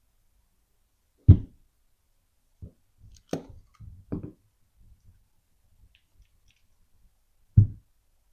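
Objects being handled and set down on a hard work surface: two heavier thuds, about a second in and near the end, with a few lighter knocks and clicks between them.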